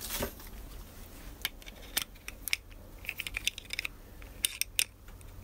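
Steel pliers gripping and turning a nut and washer on a bolt through an expandable rubber drum: a scatter of sharp, irregular metal clicks and small scrapes, with a quick run of clicks a little past halfway.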